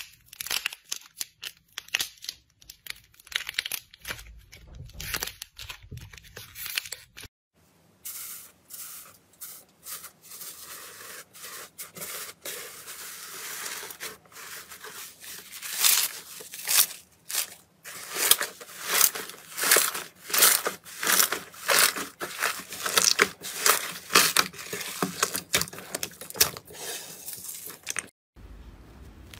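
Hands squeezing, stretching and pulling thick slime, making crackling, tearing sounds. The strokes grow louder and come about one or two a second from about halfway on, as a large mass of slime is pulled apart.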